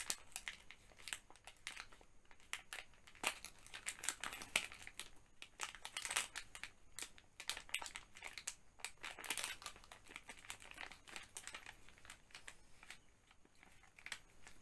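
Thin plastic packet crinkling and rustling in the hands as it is opened and handled, in irregular sharp crackles.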